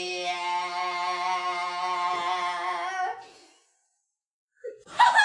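A voice holds one long, steady 'ah' note with a bright, ringing tone that stops about three seconds in. After a short silence, a brief loud cry sweeps down in pitch near the end.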